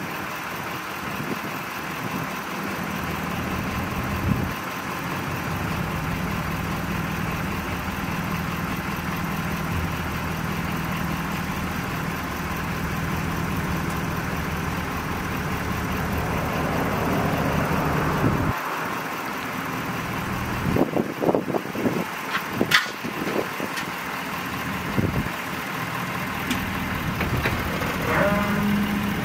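Ford F-550 Super Duty dump truck idling with a steady low hum while its raised dump bed lowers. The hum changes about two-thirds of the way through, and a few sharp knocks follow.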